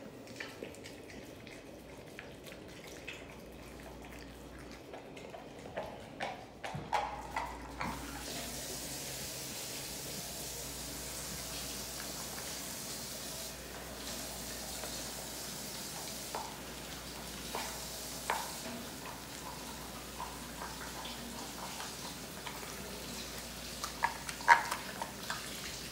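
American bully dog licking and gnawing at the skin of a raw turkey leg: scattered wet smacking and clicking sounds, with a cluster of louder clicks near the end, over a steady faint hiss that sets in about a third of the way through.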